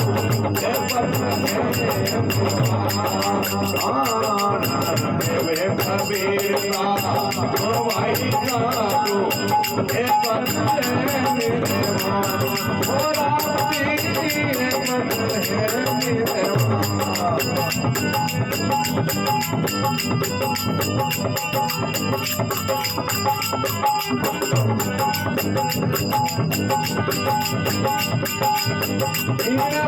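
Rajasthani bhajan music: a melody over a fast, steady jingling percussion beat.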